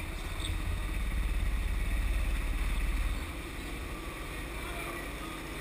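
Sodi rental go-kart engine running as the kart drives a lap, heard from onboard as a low drone that is strongest during the first three seconds and then eases off somewhat.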